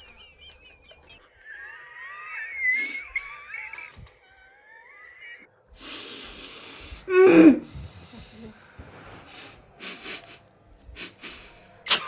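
High, wavering wheezy squeaks of someone trying to hold in laughter with a mouthful of water, with one loud squeal falling in pitch about seven seconds in.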